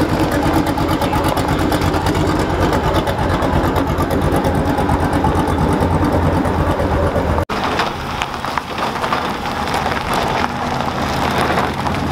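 Engines of old pickups and custom cars rumbling as they roll slowly past at low speed. The sound changes abruptly about seven and a half seconds in, at a cut, to a noisier rumble from another passing car.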